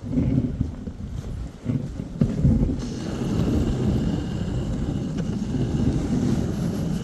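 Dog sled running over snow: an uneven low rumble from the sled and its runners, with wind buffeting the microphone. A fainter high hiss joins about three seconds in.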